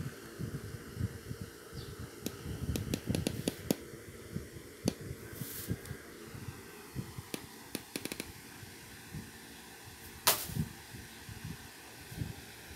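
Keys of a compact Bluetooth tablet keyboard being pressed, an irregular run of clicks and dull taps, densest around three seconds in, with one sharper click about ten seconds in.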